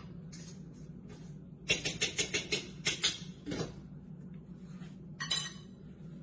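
Clinking and clattering of kitchenware: a quick run of sharp clinks about two seconds in and another short clatter near the end, over a steady low hum.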